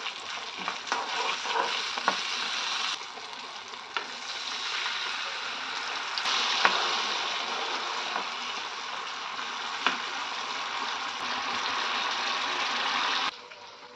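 Hot oil sizzling steadily in a metal kadai as a tempering of peanuts, green and dried red chillies and curry leaves fries, with a steel spoon clicking against the pan now and then as it is stirred. The sizzle swells louder around the middle when liquid is poured into the hot oil, then cuts off suddenly near the end.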